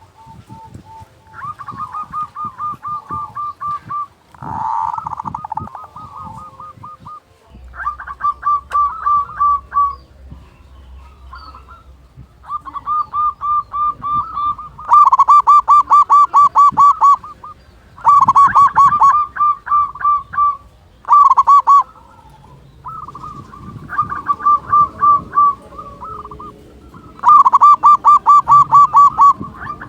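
Zebra dove (perkutut) singing: repeated phrases of rapid, evenly pulsed cooing notes, each phrase lasting one to three seconds, with the loudest phrases in the second half.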